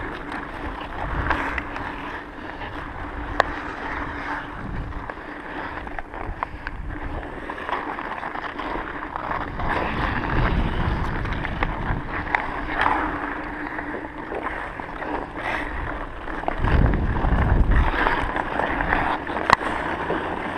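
Hockey skate blades scraping and swishing over rough pond ice, with now and then a sharp clack of stick on puck or stick. Wind rumbles on the head-mounted camera's microphone twice, about halfway and again near the end.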